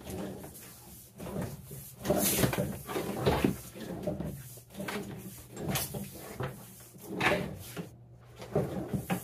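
Heavy 6/3 electrical cable being pulled by hand from overhead joists, its sheath sliding and rubbing against the wood and itself in a series of uneven pulls.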